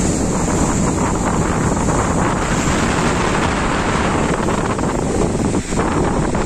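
Wind buffeting the microphone: a loud, steady rumbling rush, with a thin steady high hiss above it.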